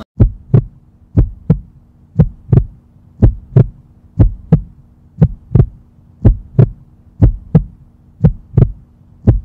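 Heartbeat sound effect: a double thump about once a second, ten times, over a steady low hum.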